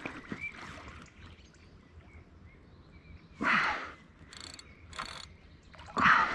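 Water splashing briefly at the surface twice, about three and six seconds in, where the live bait under a fishing float is stirring the water, with a few small knocks on the kayak and faint bird chirps.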